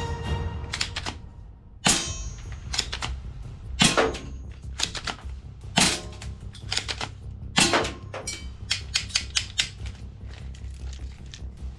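Toy airsoft or BB guns firing: a string of sharp snaps and clicks at irregular intervals, coming in quicker runs in the second half.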